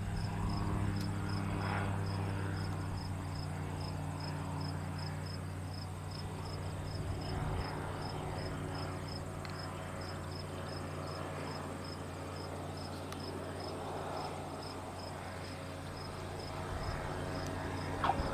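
Piper PA-28-180 Cherokee's Lycoming four-cylinder engine droning low and steady at reduced power on approach to land, with crickets chirping steadily about three times a second. Near the end a short squeak as the tyres touch the runway.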